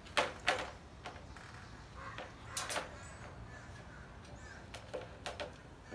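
Wire dog crate door clinking and rattling as it is handled: a few short metallic clicks, coming in pairs near the start, about two and a half seconds in and about five seconds in.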